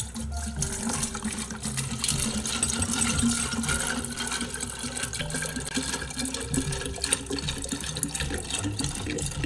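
Liquid pouring from an upturned plastic bottle into a large 2-litre stainless-steel tumbler, a continuous splashing fill.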